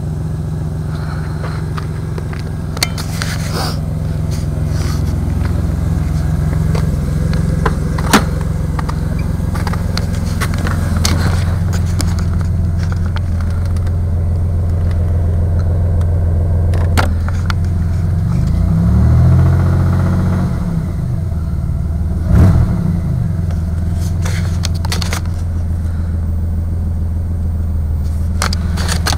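A Pontiac engine with about 190,800 miles on it, running at idle with a knock that the owner takes for rod knock. It is revved up and back down once about two-thirds of the way through, then blipped briefly soon after.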